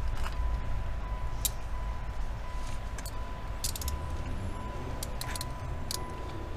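Steel handcuffs being closed and ratcheted on a man's wrists behind his back: a scatter of short, sharp metallic clicks, several close together about four to five seconds in. Under them is the low rumble of handling noise on a body-worn camera, with a faint steady thin tone.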